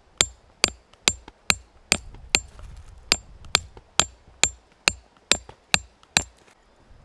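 A hammer striking a hooked metal tent peg, driving it into the ground: even blows about two a second, each a sharp metallic clink with a brief ring, stopping about six seconds in.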